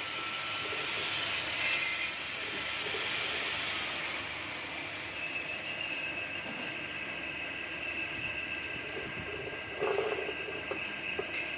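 Workshop machinery running with a steady hiss; a high, steady whine sets in about five seconds in, and there is a short knock near the end.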